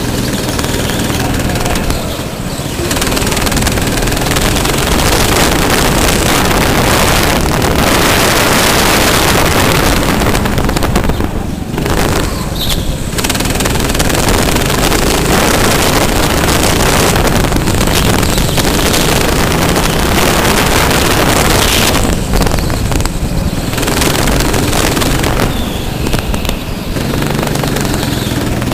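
Go-kart engine running loud and rough at racing speed, dipping briefly several times, around 2 s, 11–13 s and 22–27 s in.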